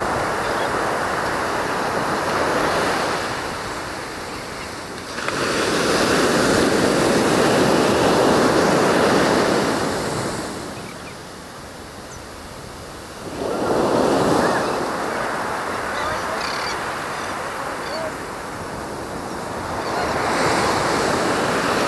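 Sea waves breaking on the shore, the surf swelling and falling back three times, about every seven or eight seconds.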